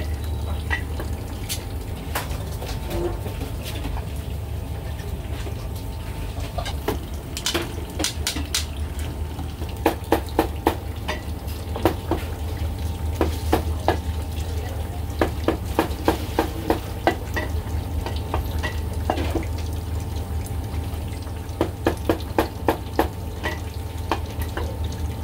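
Cleaver knocking on a thick wooden chopping block in short runs of quick strokes, about three or four a second, over a steady low hum.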